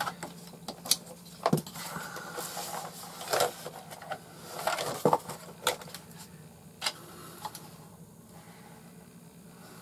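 Hard plastic drone and its foam-lined hard-shell case being handled: irregular clicks, knocks and rustling as the quadcopter is lifted out, dying down near the end.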